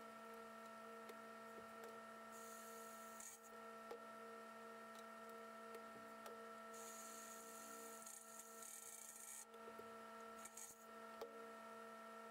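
Near silence: room tone with a faint steady electrical hum, broken by a few brief stretches of soft hiss and tiny clicks.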